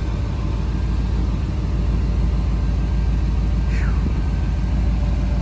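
The LS1 V8 in a swapped Nissan 300ZX running steadily, its deep, low exhaust note even throughout.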